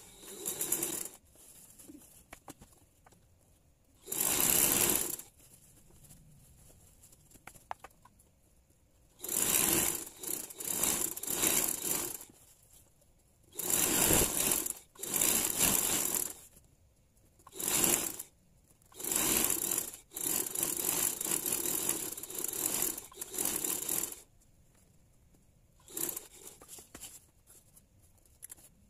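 Domestic sewing machine stitching fabric in about ten stop-start runs, each from under a second to a few seconds long, with quiet pauses between them.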